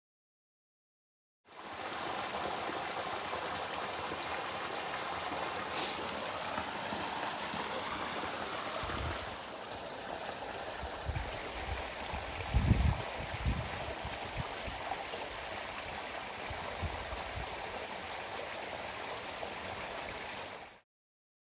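Steady rushing of running water, like a small stream, with a few low thumps about halfway through.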